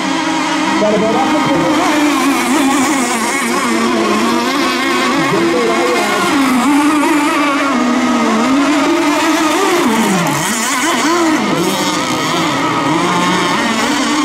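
Several racing RC boat engines running at high revs together. Their pitches rise and fall as the boats throttle through turns and pass by, with a sharp dip about ten seconds in.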